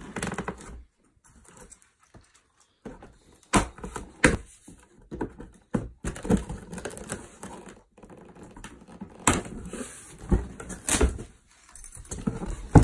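A cardboard box being opened by hand: irregular crackles, scrapes and knocks of the cardboard flaps and packing tape, with a few short pauses and a sharp knock near the end.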